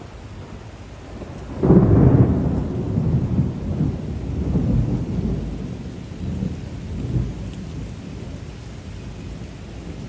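Thunder rolling over steady rain: a sudden low rumble about two seconds in that swells and rolls for several seconds, then dies away, leaving the even hiss of the rain.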